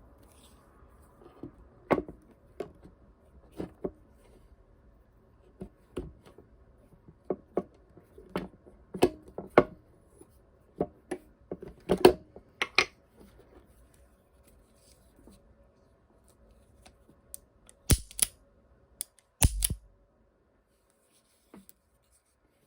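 Type 26 Japanese revolver being field-stripped by hand: irregular metal clicks and clacks as its parts are worked and handled, with two heavier knocks later on.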